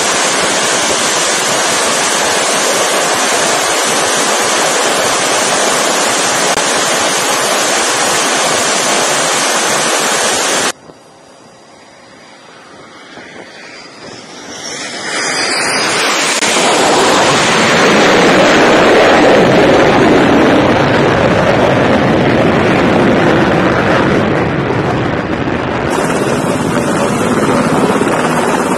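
A carrier fighter jet's engines at full power with the afterburner lit on the catapult: a steady loud rush that cuts off suddenly about eleven seconds in. After a quieter stretch with a brief high whistle sliding in pitch, aircraft noise builds over a few seconds to another steady loud rush, and near the end a helicopter is hovering.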